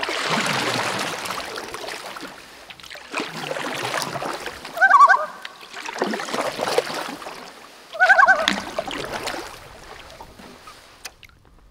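Water splashing in several surges lasting a second or two each, with two short runs of honking bird calls, about five and eight seconds in.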